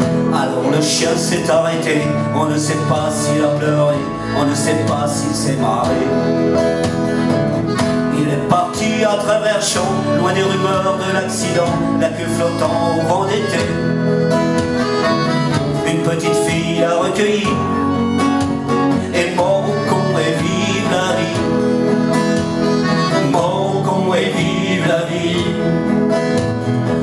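Live acoustic band playing an instrumental passage with no singing: plucked strings and double bass carrying a steady rhythm under accordion and keyboard.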